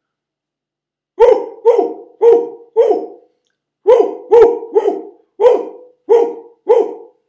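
A man imitating a dog barking: ten short woofs in two runs, four and then six, with a pause of about a second between the runs.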